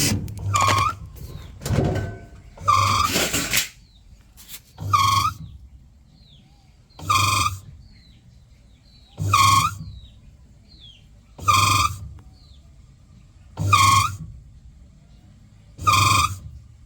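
Samsung washing machine making the same short humming, squeaking burst about every two seconds, eight times over. Faint bird chirps are heard between the bursts.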